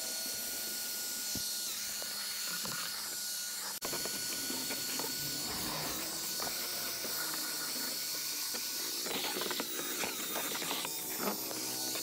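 Steady high-pitched hiss from a pressurised cleaning tool, with a faint steady whine running under it; a few light knocks and clicks come in near the end.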